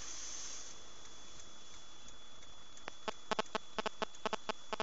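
Steady hiss of a dashcam's in-car microphone with a thin high whine. From about three seconds in comes an irregular run of sharp clicks.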